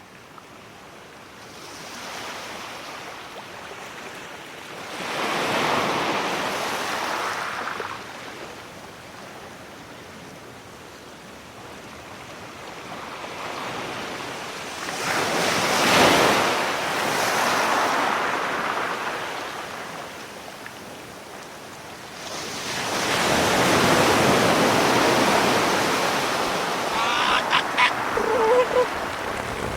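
Ocean waves washing in, a hiss that swells and fades three times, each surge lasting a few seconds. Near the end a few short pitched animal calls sound over them.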